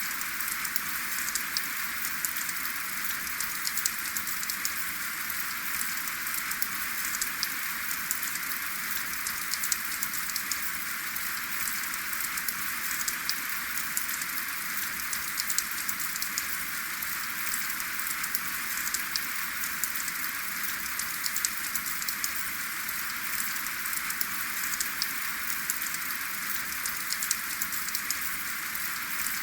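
Steady rain falling without thunder, a constant hiss with many individual drops ticking close by.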